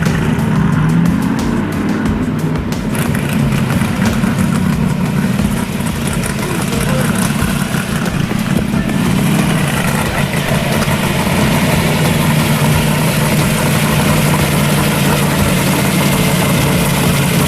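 Car engine revved a few times in the first seconds, then idling steadily.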